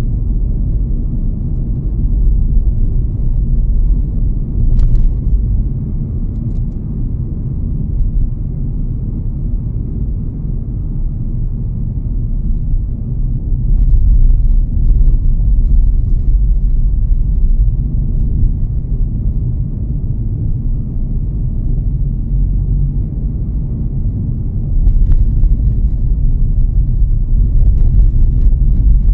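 A car driving on the road: a steady low rumble of engine and tyres that swells louder a few times.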